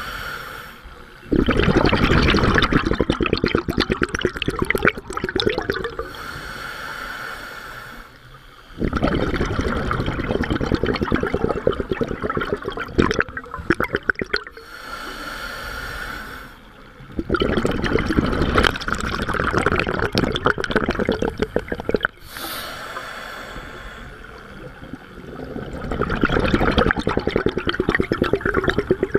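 Scuba diver breathing through a regulator close to the microphone: long, loud bubbling exhalations alternate with shorter hissing inhalations, about four breaths.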